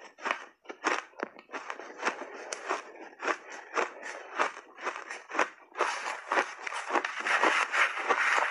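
A person biting and chewing big mouthfuls of refrozen blended shaved ice: a run of sharp, crisp crunches about two to three a second, becoming denser, almost continuous crunching about six seconds in.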